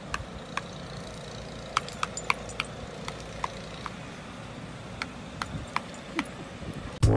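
Scattered light metallic clinks, about a dozen at irregular intervals, each with a short ring, over a steady low background. Loud brass jazz music cuts in abruptly at the very end.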